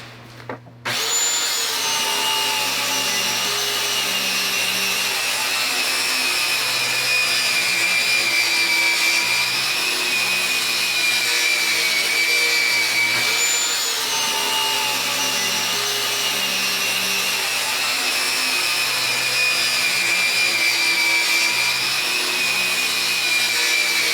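Circular saw ripping the edge of a black walnut slab, starting about a second in. The motor's whine drops in pitch as the blade loads up, then briefly rises and falls again about halfway through: the blade is binding in the cut.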